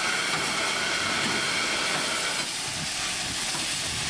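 Steady hiss of steam from a GWR 64XX-class pannier tank steam locomotive, with a faint high whistling tone in it that stops about two and a half seconds in.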